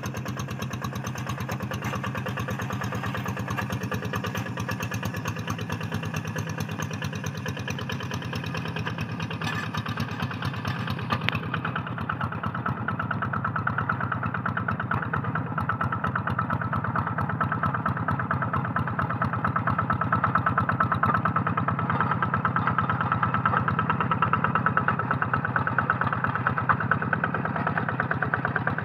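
Single-cylinder diesel engine of a Quick G3000 Zeva hand tractor chugging steadily under load as it pulls a harrow through a flooded rice paddy. It grows gradually louder as the tractor comes closer.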